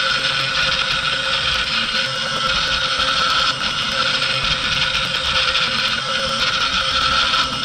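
Mooz desktop CNC's spindle running with a steady high whine while a 0.1 mm-tip engraving bit carves into a wooden block.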